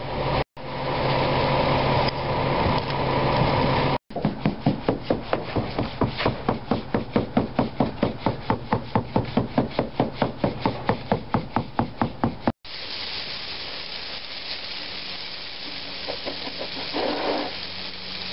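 Concrete mixer truck's engine running steadily as concrete slides down the chute; then rapid, even knocking, about five strikes a second, as the wet concrete is worked; then a steady hiss of a garden hose spraying water over the fresh slab, washing the surface to expose the aggregate.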